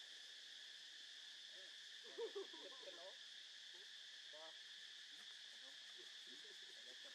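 Steady, high-pitched drone of insects in the trees, faint. A few faint short calls cut in about two seconds in and again a couple of seconds later.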